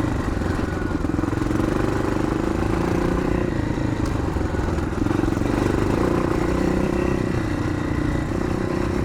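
1981 Yamaha XT500's single-cylinder four-stroke engine running steadily while being ridden, its note easing off and picking up slightly a couple of times.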